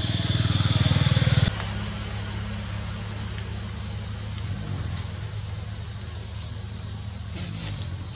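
A low, steady engine hum, loudest for the first second and a half, then continuing more quietly after a sudden change. From that point a thin, steady high insect drone runs alongside it.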